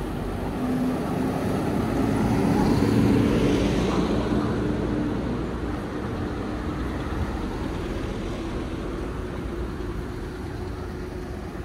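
Traffic noise from a vehicle passing close by. It swells to its loudest about three seconds in, then slowly fades into the steady street background, with a low hum running under it.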